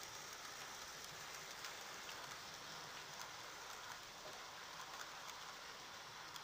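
Model railway train running on its track: a faint, steady rolling hiss with scattered light clicks.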